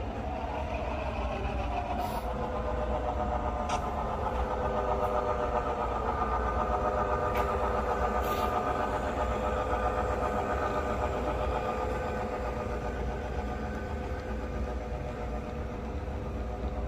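Model Southern Pacific diesel locomotives running past, a steady mechanical hum and whine that swells as they pass close and then eases off, with a few light clicks from the track.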